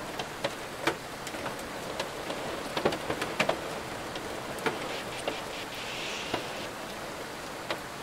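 Steady rain, with many scattered sharp ticks of drops striking a surface.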